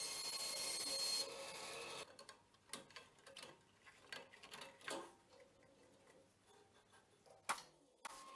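Bandsaw running through a cut in hardwood, a steady hiss with a thin high whine that stops about a second in. After that come scattered light clicks and knocks, with one sharper knock near the end.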